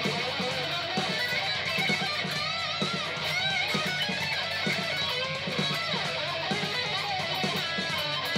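Ibanez RG1527 seven-string electric guitar played with a pick: a continuous run of notes with bends and vibrato over repeated low picked notes.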